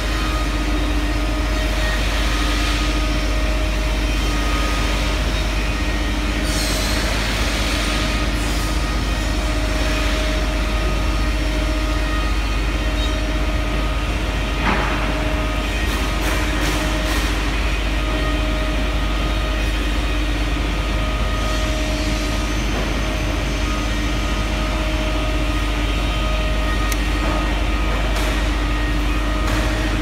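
Steady hum of running machinery: a constant low rumble with a droning tone over it. A few short clicks and rattles of wire and pliers come near the middle.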